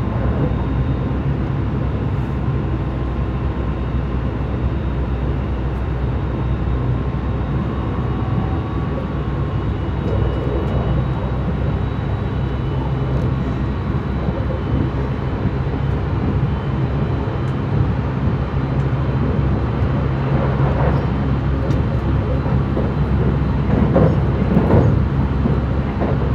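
Running noise inside a JR West 681-series express motor car (MoHa 681) at speed: a steady low rumble of wheels on rail with faint steady tones above it. The noise grows rougher and louder in the last several seconds.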